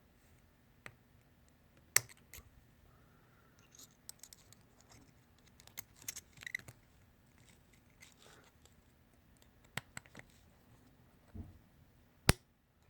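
Light metal clicks and scrapes of a screwdriver prying at the piston inside a Magura clutch master cylinder, with a few sharp taps, the loudest about two seconds in and another just before the end.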